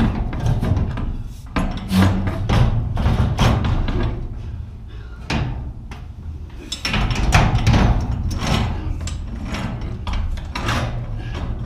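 Garage door torsion spring being handled and slid along its steel shaft: a run of irregular clanks and knocks as the coils and hardware bump against the shaft.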